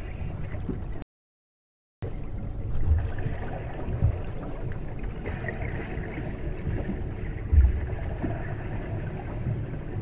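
Steady low rumbling water noise with a few dull thumps. The sound cuts out completely about a second in and comes back a second later.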